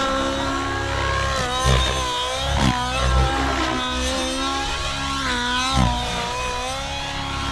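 OS 105HZ-R two-stroke glow engine of an RC nitro helicopter in flight, its high whine rising and falling in pitch as the helicopter manoeuvres, with a few short low thumps along the way.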